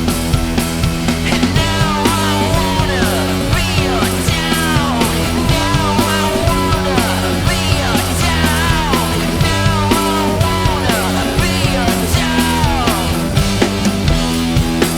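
Punk-rock band recording with a steady drum beat, bass and guitar, with a run of falling pitch slides repeating above the beat.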